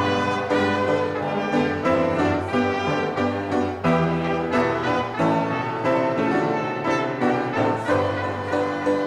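A hymn tune played by instruments, with bowed strings and brass holding slow chords that change about once a second.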